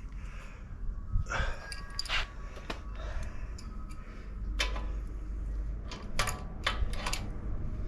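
Scattered metallic clicks and knocks of tools against an e-bike's rear axle and frame while the loose rear wheel is pulled back in its dropouts, a few with a brief ring.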